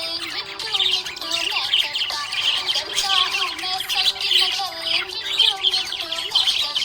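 Budgerigars chirping and warbling in a dense, continuous chatter.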